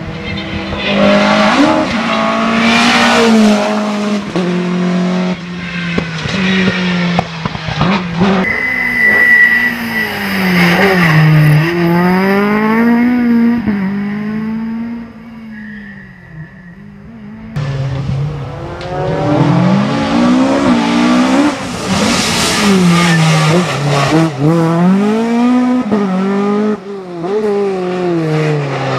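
Millington Diamond four-cylinder rally engine revving hard, its pitch climbing and falling back over and over as the car is driven through the gears at full stage pace. There is a brief high squeal about nine seconds in. The note fades around sixteen seconds, then comes back suddenly at full volume.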